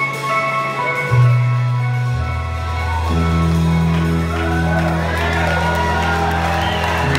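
Live rock band, electric guitar and drums, playing long held chords over low notes that change every second or so. Whoops and cheers from the crowd join in from about four seconds in.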